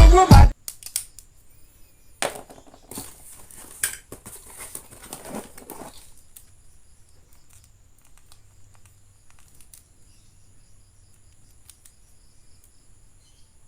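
Music cuts off about half a second in. Then packaging crinkles and rustles for a few seconds as toys are unboxed, followed by faint scattered clicks of handling.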